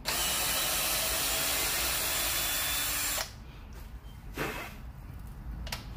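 Handheld cordless drill with a 1/8-inch bit running steadily as it drills a pin hole through stacked knife-handle scales for about three seconds, then stopping, followed by two short whirs of the drill.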